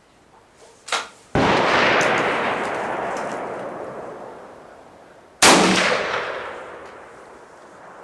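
Henry single-shot .357 Magnum rifle firing a Federal 158-grain jacketed soft point, a sudden loud report that fades away over several seconds. A second, sharper report about four seconds later fades the same way, with a short click just before the first.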